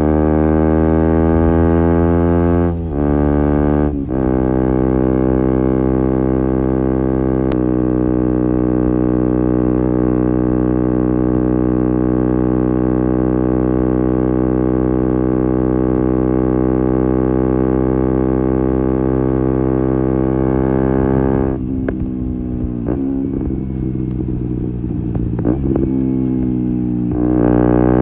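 KTM Duke 125's single-cylinder engine through an Akrapovic exhaust, accelerating and shifting up twice in the first few seconds, then holding steady revs for a long cruise. About 21 seconds in it comes off the throttle and runs unevenly on the overrun, then revs up again briefly near the end.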